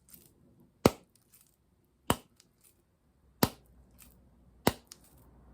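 Two blocks of vegan butter struck together, four sharp slaps about one and a quarter seconds apart, each followed by fainter clicks as the sticky blocks pull apart.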